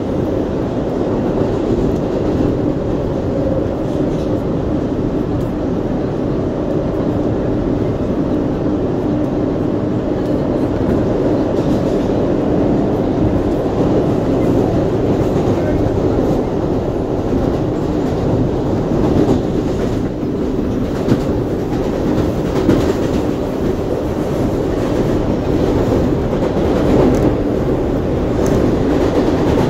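Inside an R142A subway car on the move: a loud, steady rumble of wheels on rails and car noise, with a few sharp clicks and knocks from the wheels in the second half.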